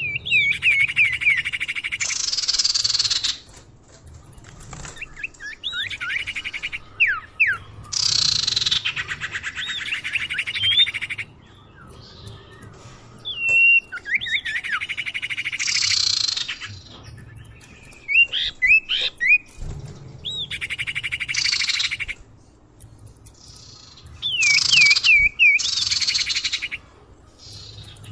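Common iora (cipoh, sirtu) calls played as a lure recording: bouts of fast buzzy trills alternate with short swooping whistled notes, repeating every few seconds.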